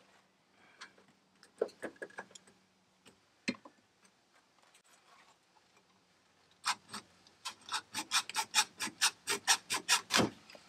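Hacksaw cutting through plastic tabs on an RV's sewer drain outlet fitting. A few scattered scrapes come first, then about two-thirds of the way in a run of quick, even back-and-forth strokes, about four or five a second.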